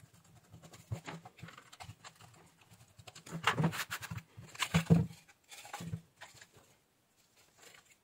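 Clicks, scrapes and rattles of a plastic hair dryer housing being pried apart with a screwdriver and its fan, motor and heating element assembly pulled out. The loudest scraping and knocking comes in two short spells about halfway through.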